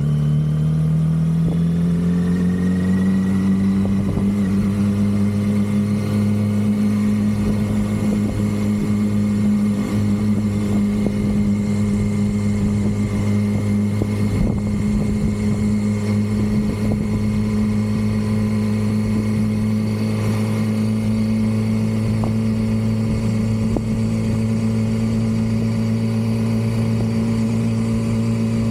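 2006 Yamaha R6's 600 cc inline-four on its stock exhaust running steadily. Its pitch rises over the first couple of seconds and then holds even.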